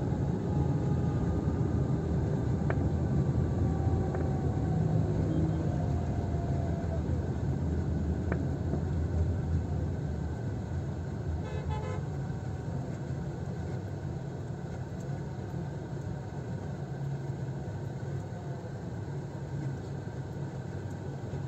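Steady low rumble of a car's engine and tyres heard from inside the moving car, with faint drawn-out high tones sliding slightly downward over the first several seconds. The rumble eases a little after about ten seconds.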